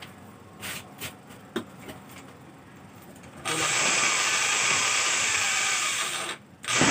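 A few light clicks as a handheld electric drill with a Forstner bit is set on the plywood. About three and a half seconds in, the drill starts boring the cup hole for a concealed hinge. It runs steadily for about three seconds, stops briefly and starts again near the end, deepening the hole until the hinge cup sits flush.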